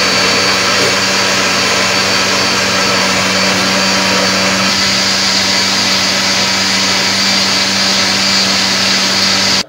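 Electric juicer-blender motor running at a steady speed, blending mango chunks with milk and sugar: an even whirring hiss over a constant low hum. It stops abruptly at the very end.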